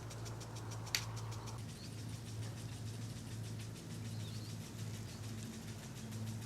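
Outdoor ambience: a steady low machine hum, a single sharp click about a second in, and a few faint bird chirps.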